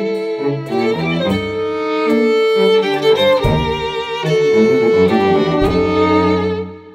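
A string quartet of two violins, viola and cello plays a tango melody over sustained low cello notes. Two low percussive hits come around the middle, and the music dies away near the end.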